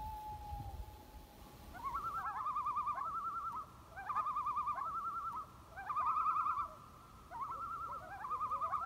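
Common loon calling: a long held wail note fades out about a second in. From about two seconds in come several quavering tremolo phrases, each one to two seconds long.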